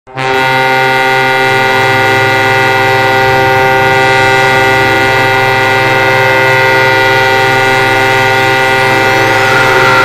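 Victoriaville Tigres arena goal horn blaring one long, steady blast of several held tones, cutting in sharply at the start.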